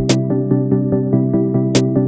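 Electronic background music: synthesizer chords pulse in quick, even notes, with a sharp percussion hit just after the start and another near the end.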